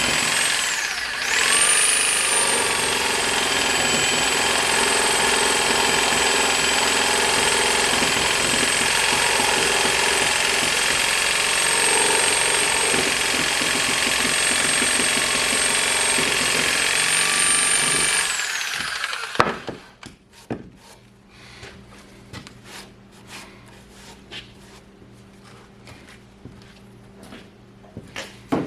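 Electric power saw cutting timber. Its motor whine dips as the blade loads up about a second in, then runs steady and winds down and stops after about 18 seconds. Scattered knocks and clicks of the wood and saw being handled follow.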